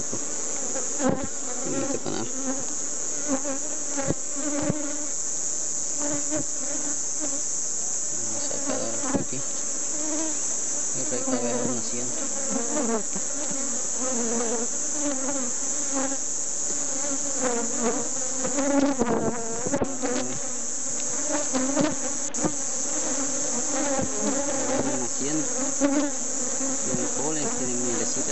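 Honeybee colony buzzing around an open hive: a dense, wavering hum of many wingbeats at a steady level. A few sharp clicks from the wooden frames being worked with a metal hive tool.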